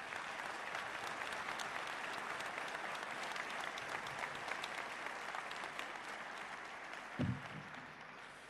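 Audience applauding: many hands clapping, which thins out and fades away near the end. There is one short low sound shortly before it dies down.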